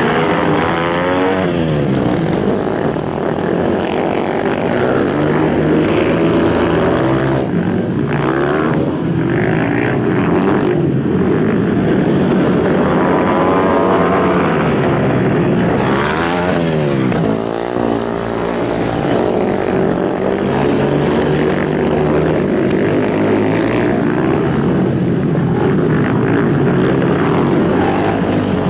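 Several racing motorcycles' engines running hard at high revs, overlapping continuously, with sweeping rises and falls in pitch as bikes pass, most clearly about two seconds in and again around sixteen seconds.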